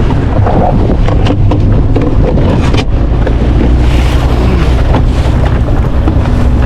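A boat's motor running steadily under way, with wind buffeting the microphone.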